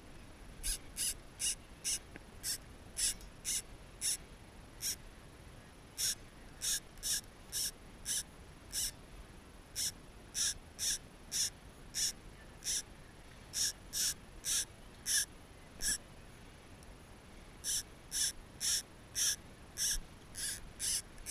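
Avet MXL lever-drag reel giving line in short buzzing spurts, about two a second in runs with a few pauses, as a large stingray pulls against the 14 lb drag.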